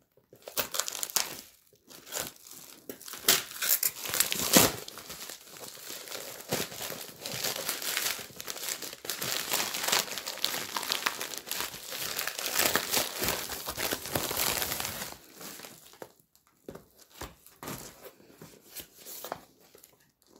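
Plastic mailer bag and wrapping being torn open and crinkled by hand, a dense run of crackling and rustling that thins to a few scattered crinkles after about fifteen seconds.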